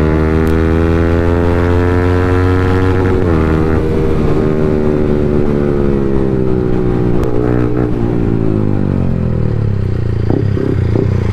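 Yamaha motorcycle's engine heard from the saddle while riding, its pitch climbing under throttle with a short break about three seconds in, then easing and falling over the last few seconds as the bike slows.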